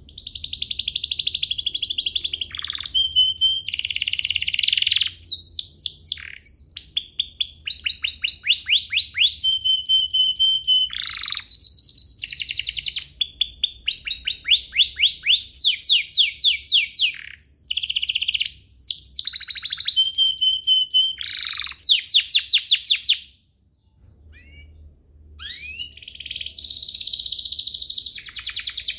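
Domestic canary singing a long, fast song of rolling trills and rapid runs of repeated notes, stopping for about a second some 23 seconds in before starting again.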